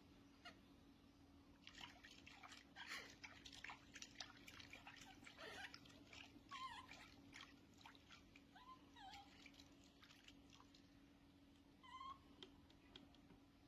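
Faint water splashing and dripping with a few short, high squeaks from a baby monkey swimming.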